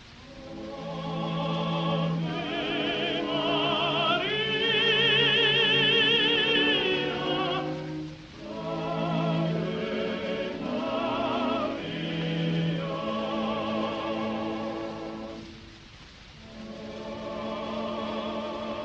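Classical music with operatic singing: long held phrases with vibrato over a low sustained accompaniment, dipping briefly about eight and again about sixteen seconds in.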